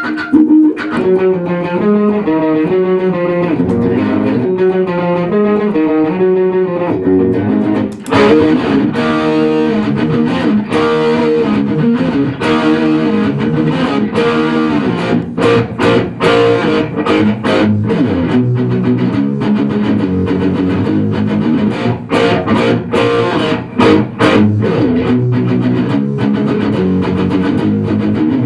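Band music led by guitar, with a bass line underneath. About eight seconds in the playing becomes fuller, with many sharp hits.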